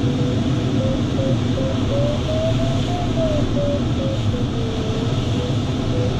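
Steady rush of air around a glider's canopy with an audio variometer's tone over it: short beeps that rise and fall in pitch with the climb rate, a smooth lower tone for about a second around four to five seconds in, which marks sink, then beeps again as the glider climbs.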